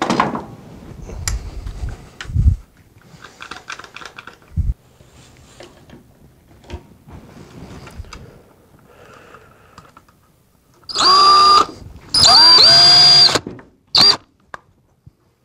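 Cordless drill running in three short bursts near the end, the middle one longest, its motor whine rising as each starts. Before that come scattered knocks and handling noise.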